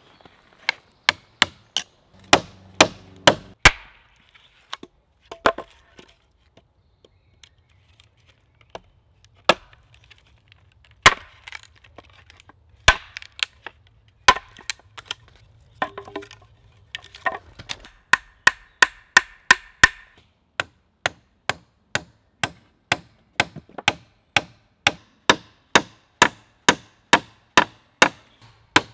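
Hammer driving nails into wooden poles: a string of sharp knocks, spaced out and irregular at first, then a steady run of about two blows a second through the last third.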